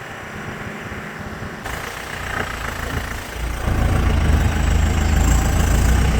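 Mahindra jeep's Di Turbo diesel engine running as the jeep drives off-road. It gets much louder and deeper about three and a half seconds in.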